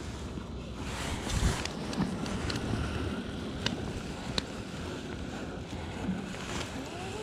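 Rubbing and rustling of clothing against the camera microphone, with wind noise, a dull thump about a second and a half in and a few sharp clicks.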